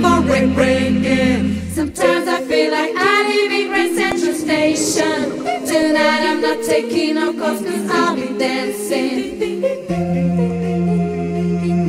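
Background music: a cappella choral singing. A steady low drone under the voices drops out about two seconds in and returns near the end.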